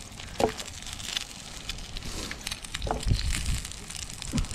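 Wood campfire crackling with scattered sharp pops, over the steady hiss of eggs and ham frying in a pan held above the flames.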